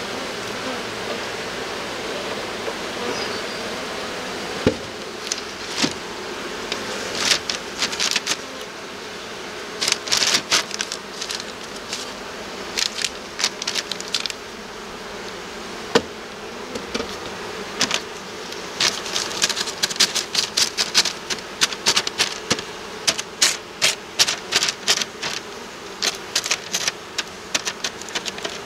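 Honeybees humming steadily around an open wooden hive, with runs of quick, sharp clicks and taps from handling the hive box, frame and newspaper sheet. The clicking grows denser in the second half.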